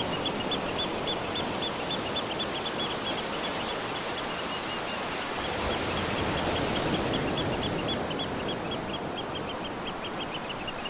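Outdoor nature ambience: a steady rushing noise with a fast run of short, high chirps, about four or five a second, that pauses around the middle and then resumes.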